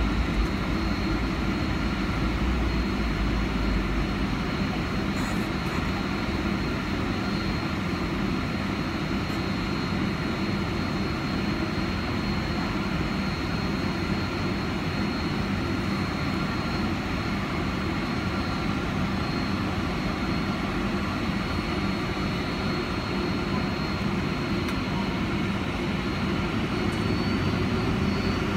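Boeing 757-300's Rolls-Royce RB211 turbofan engines heard from inside the cabin, running steadily at taxi power with a rumble and a high whine. Near the end the whine starts to rise in pitch as the engines begin to spool up.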